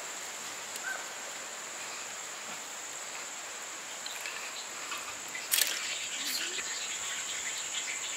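Steady high-pitched drone of insects, crickets or similar. About five and a half seconds in, a metal spatula knocks briefly against the steel pan.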